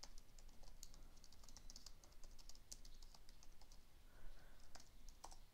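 Faint typing on a computer keyboard: a quick run of keystrokes for about the first three seconds as a line of text is entered, then a few separate key presses near the end.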